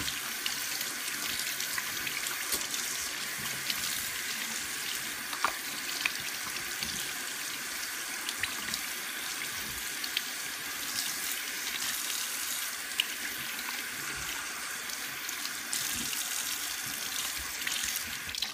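Tap water running steadily into a sink while soapy hands are rinsed under the stream, with a few small splashy clicks. The water stops abruptly at the very end.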